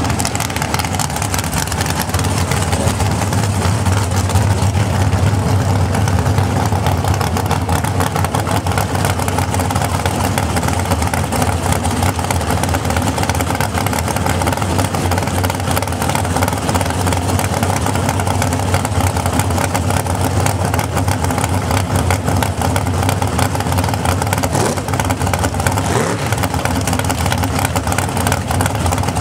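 Pontiac Fiero dragster's engine running at a steady idle, with no revving.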